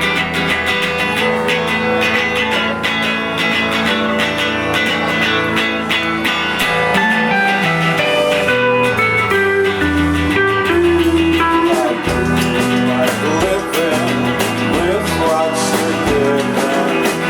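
Live band playing an instrumental passage led by guitar over a bass line, without singing.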